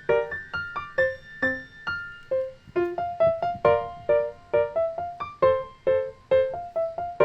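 Background piano music: a light melody of short struck notes and chords, about two a second.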